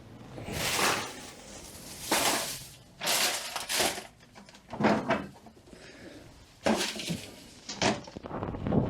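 Tools and metal parts being handled at a workbench: about six short clattering, scraping noises with brief pauses between them.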